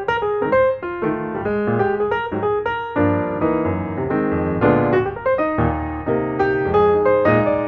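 Background piano music: a flowing melody of quick, evenly struck notes, with fuller low notes joining about three seconds in.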